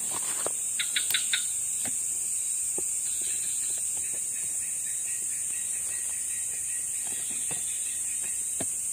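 Night insect chorus: crickets keep up a steady, high-pitched drone. A burst of four quick chirps comes about a second in, and a few soft clicks are heard.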